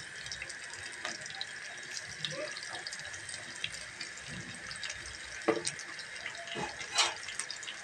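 Sliced onion and whole cumin seeds sizzling in hot oil in a frying pan: a steady hiss with scattered crackles, and a couple of louder pops about five and a half and seven seconds in.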